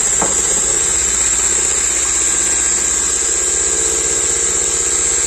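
Electric hand mixer running steadily at a constant speed, its twin beaters whisking thick cake batter in a bowl.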